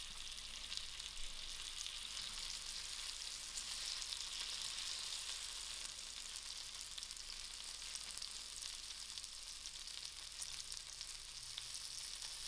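Chicken and vegetable skewers sizzling steadily on a hot, lightly oiled ridged griddle pan (plancha), with faint crackling.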